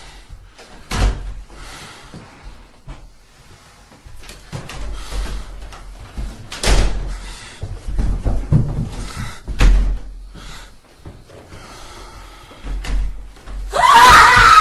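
Asylum horror ambience sound effect: heavy door slams and echoing bangs, with scattered knocks over a low rumble. A loud wavering sound with shifting pitch starts near the end.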